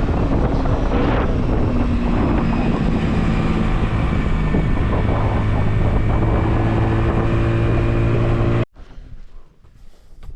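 A vehicle engine running while under way, with wind buffeting the microphone; the engine's pitch steps a few times. It cuts off suddenly near the end to a much quieter background.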